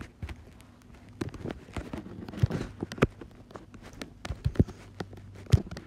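Irregular taps and clicks of typing on an iPad's on-screen keyboard, over a faint steady low hum.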